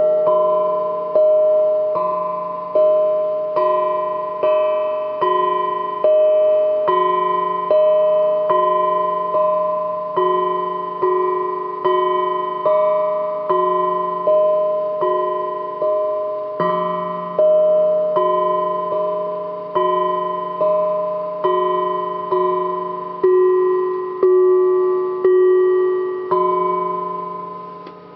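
Hamon, an iron folk instrument, struck in a slow even rhythm of about one note every 0.8 seconds. Each mid-pitched metallic note rings on and fades as the next is struck, and the playing stops just before the end.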